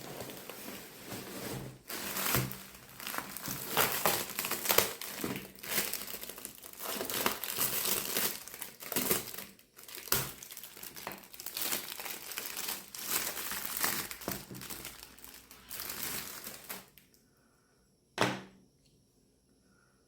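Packaging crinkling and rustling as it is handled and pulled open during an unboxing, in irregular bursts; it stops near the end, followed by a single sharp tap.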